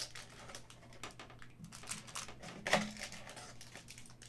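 Cardboard trading-card box and cello-wrapped packs being handled by hand: irregular light clicks and taps, with one louder knock a little under three seconds in.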